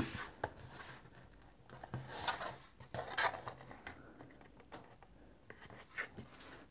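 Bone folder rubbing across cardstock in a few short, faint scraping strokes, with light paper handling and small taps as the folded card booklet is moved.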